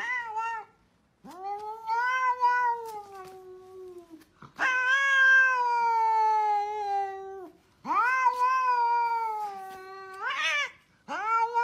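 Domestic cat yowling: a short call at the start, then three long drawn-out yowls of about three seconds each with brief pauses between them, and another starting near the end.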